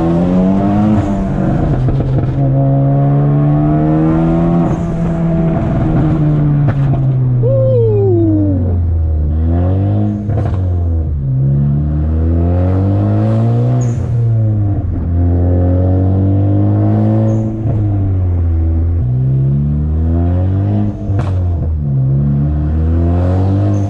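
Big-turbo Ford Focus ST engine and exhaust under way, the engine note climbing under throttle and dropping away several times as it is driven through the gears. A few sharp exhaust pops and crackles come through, from its stratified pop tune.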